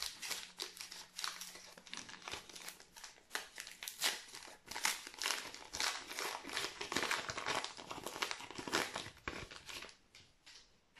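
Match Attax trading-card pack wrapper crinkling and tearing as it is opened by hand, in a long run of crackles that dies down in the last second.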